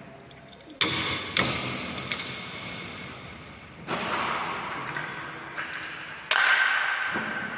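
A series of about five sharp knocks on a resonant, metal-sounding object, each followed by a ringing tone that slowly dies away, like metal parts being struck or set down during air-conditioner installation work.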